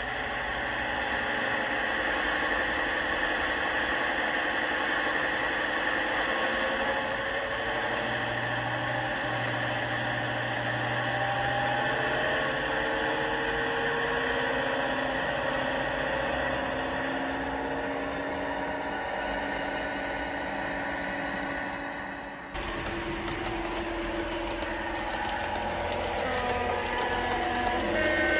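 Diesel engine sound of a Class 55 Deltic playing from a sound-fitted OO gauge model locomotive as it runs on the track, a steady engine note that slowly rises and falls. The engine note changes abruptly about three-quarters of the way through.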